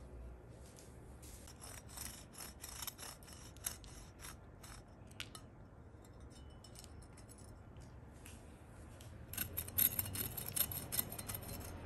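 Serrated bread knife sawing through a small sponge cake, a scratchy rasping made of quick back-and-forth strokes. It comes in two spells: one starting about a second in, and a louder one near the end.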